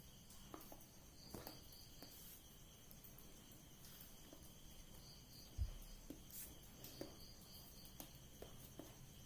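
Near silence with faint, high-pitched insect chirping that comes and goes in short pulsed runs. Light scattered clicks, and a single low thump about five and a half seconds in.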